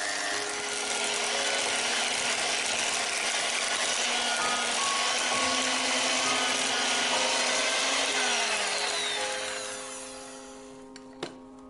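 Electric hand mixer running, its steel beaters whirring through thick cream cheese in a glass bowl, with a steady motor whine whose pitch shifts a little partway through. The sound fades out near the end, followed by a single click.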